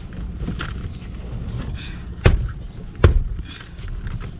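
Two sharp thumps about three quarters of a second apart, the second the louder, over a steady low hum.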